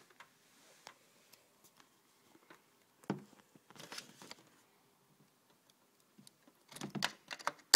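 Scattered small plastic clicks, one knock about three seconds in, and a quick run of clicks and rattles near the end: hands handling the Apple TV and pulling the USB flash drive out of its port.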